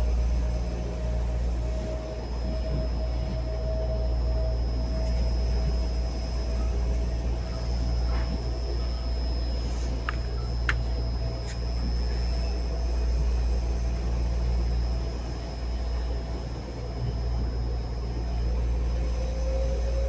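Inside the cabin of a local electric train: a steady low rumble with a steady whine that drifts slowly lower. A few sharp clicks come about halfway through, and a second whine starts rising near the end.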